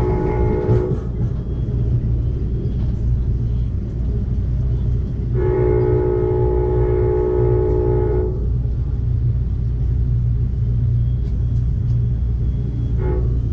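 Amtrak Cascades locomotive's multi-chime horn over the steady rumble of the moving train. A long blast ends about a second in, a second long blast lasts about three seconds, and a short toot comes near the end: the long-long-short pattern of the grade-crossing signal.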